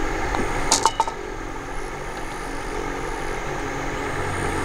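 A putter taps a golf ball in from right beside the hole, making a couple of sharp clicks just under a second in. A steady low drone runs underneath.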